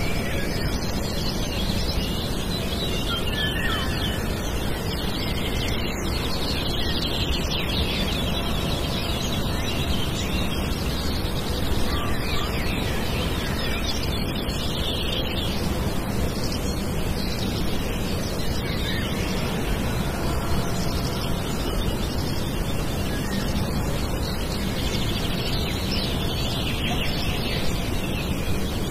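Steady outdoor ambience: an even rushing noise with faint bird chirps now and then.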